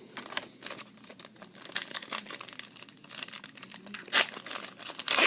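Plastic trading-card pack wrapper crinkling as it is handled and torn open, in an irregular run of crackles that is loudest just after four seconds in and again near the end.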